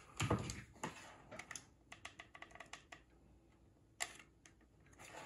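Faint, light clicks and taps of a plastic wand barrel, its wires and a hot glue gun being handled. There is a flurry of small quick clicks in the first few seconds, a pause, and one sharper click about four seconds in.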